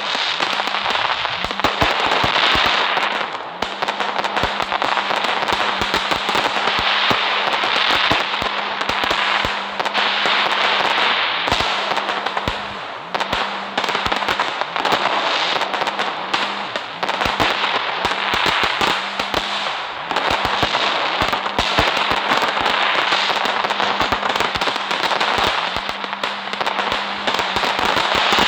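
Fireworks going off continuously: a dense, rapid crackle of small bangs and pops over a steady hiss, with a faint steady low hum beneath.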